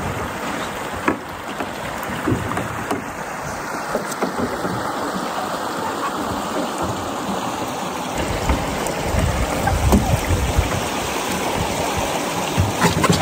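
Water rushing and splashing around a canoe on the move, with a few light knocks against the hull. A low rumble joins in about eight seconds in.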